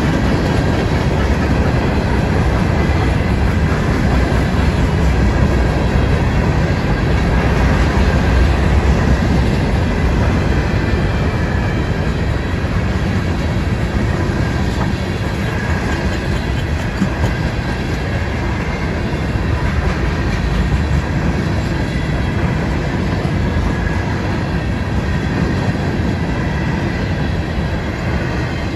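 Freight cars of a CSX train, open hoppers and covered hoppers, rolling steadily past at a grade crossing: a continuous heavy rumble of steel wheels on rail with clickety-clack over the rail joints, slightly louder in the first half.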